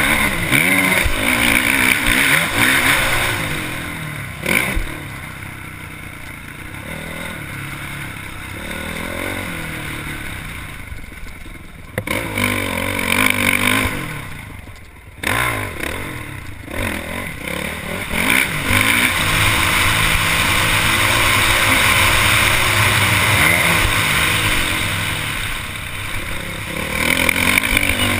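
Honda motocross bike's engine racing at high revs, heard close from a camera on the bike. About four seconds in it drops to a lower, quieter run for several seconds, broken by one sharp knock. Near the middle it climbs back to hard throttle and stays loud.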